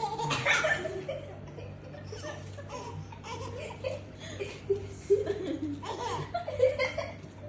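A young girl laughing in repeated giggling bursts, her pitch bending up and down.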